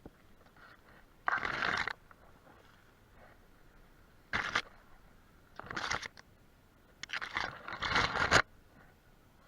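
Four short bursts of rough scraping noise, the longest and loudest near the end.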